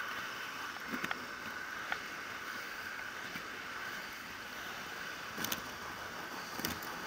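Steady rushing of wind on the microphone and tyre noise from a camera riding along a paved street, most likely on a bicycle. A few sharp clicks and knocks come from bumps in the pavement, about a second in, near two seconds and twice in the last two seconds.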